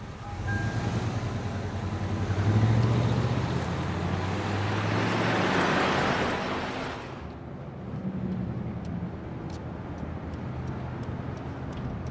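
A car engine running with road and traffic noise that swells a few seconds in and cuts off abruptly about seven seconds in, leaving quieter street background.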